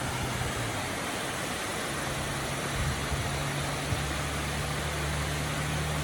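Eagle River Falls: the waterfall's rushing water makes a steady, even noise. A low engine hum comes in about two seconds in and holds.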